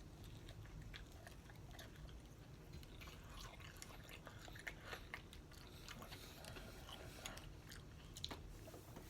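Faint chewing and biting of chicken wings close to the microphone: scattered soft wet mouth clicks and crunches.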